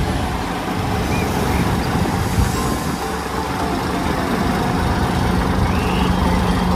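Dump truck engine running steadily, a loud dense rumble with a constant low hum.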